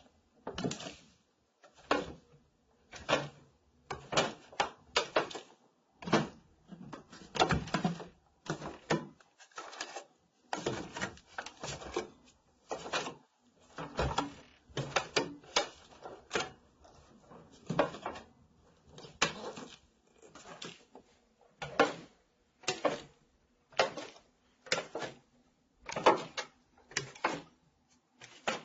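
Barefoot footsteps on wooden stairs, a dull thud at each step, about one to two steps a second, with the wooden treads creaking and squeaking under the weight.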